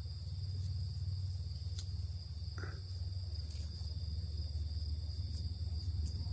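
A steady chorus of crickets and other insects trilling in a high, unbroken drone, over a low steady hum.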